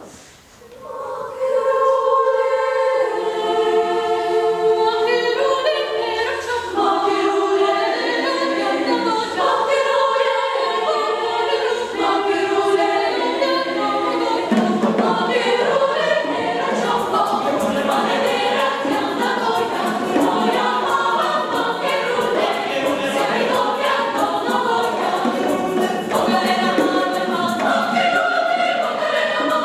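Mixed choir singing an arrangement of a Colombian folk song, starting about a second in with upper voices in sustained chords. Lower voices join about halfway through, and quick percussion enters soon after under the singing.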